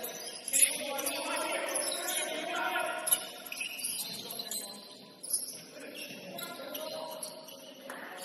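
A basketball game on an indoor court: the ball bouncing on the floor with a few sharp knocks, over players' distant voices and the hall's noise.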